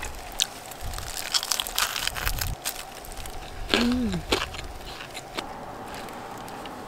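Crispy fried chicken being pulled apart and eaten by gloved hands: crackly crunching of the batter mixed with the crinkle of disposable plastic gloves, densest in the first couple of seconds and thinning out after about five seconds.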